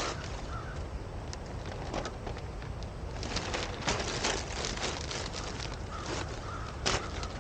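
Irregular snaps and crackles of dry wood, loudest about four seconds in and again near the end, with a few short bird chirps.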